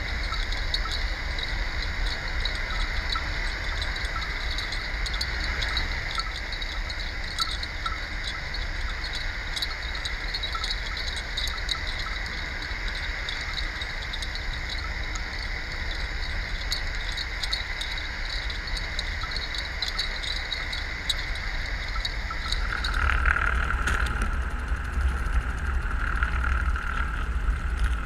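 Underwater sound picked up by a camera on a bottom-trawl net's footrope as the net is towed along the seabed: a steady hiss and low rumble with a constant high hum and scattered faint clicks. About 23 seconds in the high hum stops and a lower hum takes over, a little louder.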